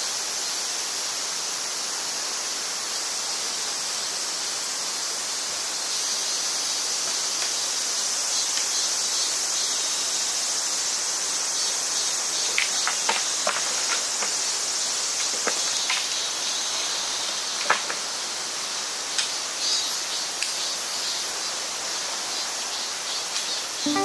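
Steady high-pitched chorus of insects, with a few light clicks and taps around the middle and one sharper knock a little later.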